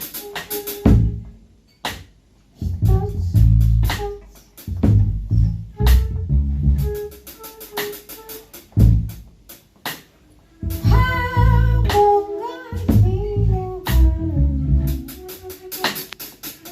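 Live improvised band music: drum kit hits and low bass notes come in short stop-start phrases with gaps between them. About eleven seconds in, a held melodic line with wavering pitch sounds over the band for a second or two.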